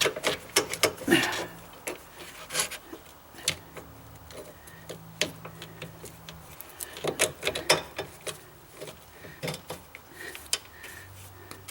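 Sway bar end link hardware being fitted by hand: irregular metal clinks, taps and rubbing as washers, rubber bushings and a spacer are worked onto the link bolt.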